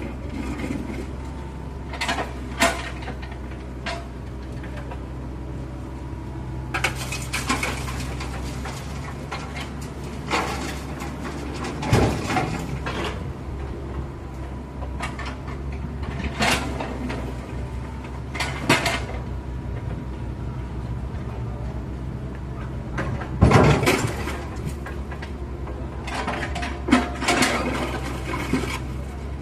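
Kubota U50 mini excavator's diesel engine running with a steady low drone, broken every second or few by sharp metallic clanks and scrapes from its working linkage.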